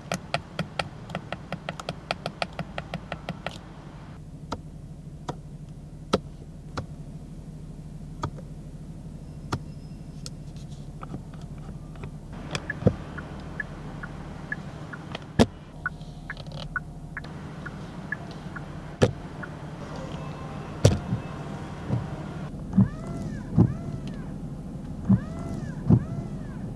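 Clicks of the Genesis G90's cabin controls: a quick run of detent clicks from a scroll wheel or knob, then single clicks and soft knocks spaced a second or more apart, over a steady low hum. Near the end, a repeating rising-and-falling whine with soft thumps as the windshield wipers sweep.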